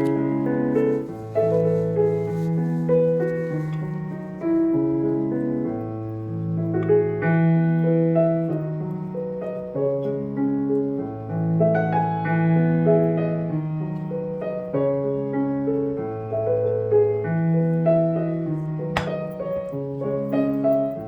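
Background piano music: slow held chords over a bass note that changes every couple of seconds.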